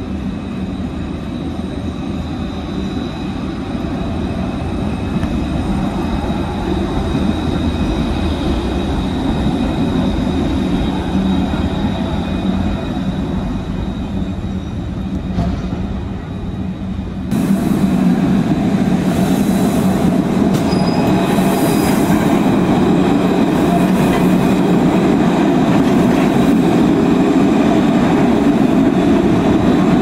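Alstom Citadis 302 tram running on street track: a steady rumble with a thin, steady high tone over it. The sound becomes louder and fuller about seventeen seconds in.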